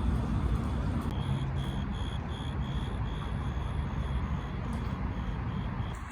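Street traffic rumble with a rapid high electronic beeping, about three beeps a second, starting about a second in and stopping near the end.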